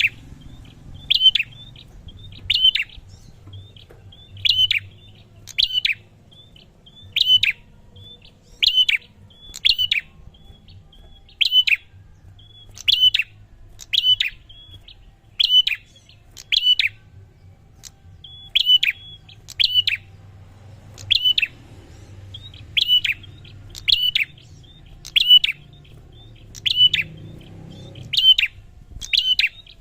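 A female prinia ('prenjak') calling in a steady series: one short, sharp, clicky note repeated about every second and a half, over a faint low hum.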